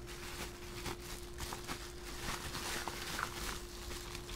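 Bubble wrap and plastic packing rustling and crinkling in irregular soft crackles as hands handle wrapped padlocks in a cardboard box. A faint steady electrical hum runs underneath.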